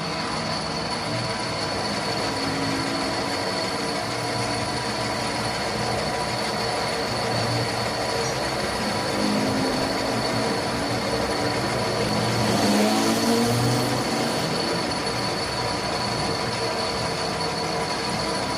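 Metal lathe cutting an iron workpiece: a steady high metal-on-metal squeal from the cutting tool over the running machine, a little louder about two-thirds of the way through.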